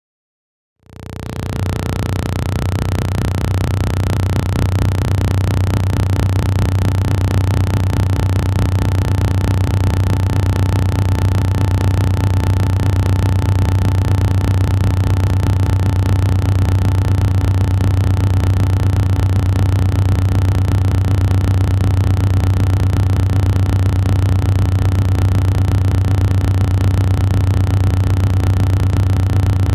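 A deep, steady droning hum that fades in over about the first second and then holds unchanged, with a few fainter steady tones above it.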